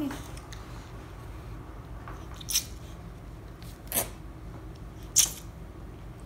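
Paper being handled: three short, crisp rustles spaced about a second apart, over a low steady hum.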